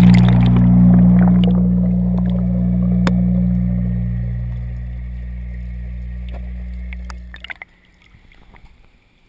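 Aquaponics fish tank heard from underwater: a steady low machine hum from the tank's pump and aerator, with air-stone bubbling that is strongest at first and fades. The hum cuts off suddenly about seven and a half seconds in, followed by a few clicks.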